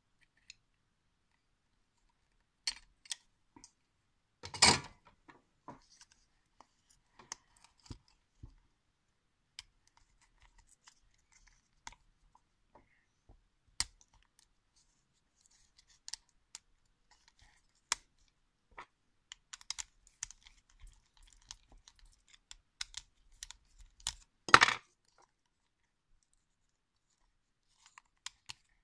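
Scattered small clicks and taps of plastic parts being handled: a Duplo locomotive's plastic motor frame turned and pressed in the hands. Two louder clacks stand out, one about five seconds in and one near the end.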